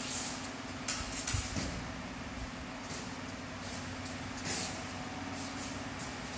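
Fencers' shoes stepping and scuffing on a concrete floor, with a few sharp scuffs about a second in and another at about four and a half seconds, over a steady low hum.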